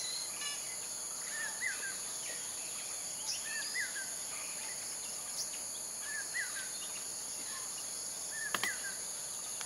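Steady high-pitched insect chorus, with a bird repeating a short, quick call four times, about every two seconds. A faint click sounds near the end.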